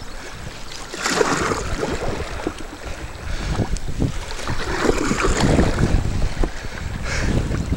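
River waves splashing and rushing against the hull of a cottonwood dugout canoe as it rides the high rollers below a rapid, in irregular surges about a second in, around four to five seconds in, and near the end. Wind buffets the microphone throughout as a low rumble.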